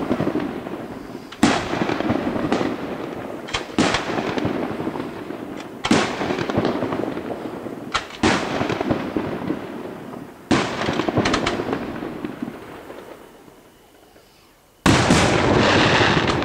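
Aerial firework shells bursting: a sharp bang every second or two, some in quick pairs, each trailing off slowly. The bangs die away to a lull, then a loud, dense volley starts suddenly about a second and a half before the end.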